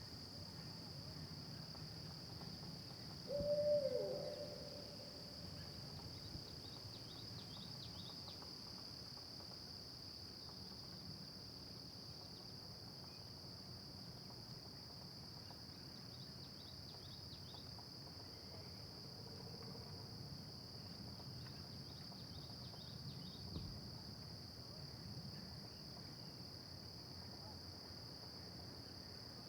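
Steady chorus of insects, an even high-pitched drone with faint clusters of ticks every few seconds. About three seconds in, a brief louder call slides down in pitch.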